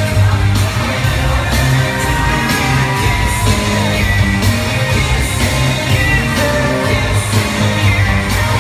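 Live pop music from a concert stage: a male singer on a headset microphone over a band with a steady beat, holding one long note for about a second and a half partway through. Heard through a phone's microphone in the audience.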